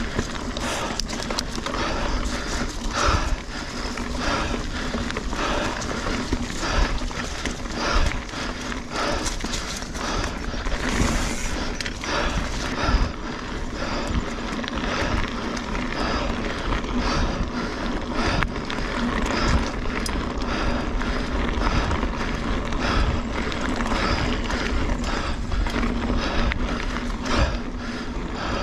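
A 2017 Kona Honzo hardtail mountain bike rolling fast over a dirt trail: steady tyre and trail noise with frequent knocks and rattles from the bike as it runs over bumps.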